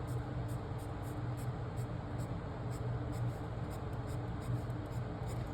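Pen scratching on paper in a run of short, quick strokes as marks are filled into a logic-puzzle grid, over a steady low hum.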